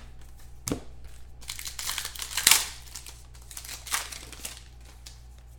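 Trading card pack wrapper crinkling and tearing as it is ripped open, in irregular bursts of crackle with a few sharp clicks, loudest about two and a half seconds in.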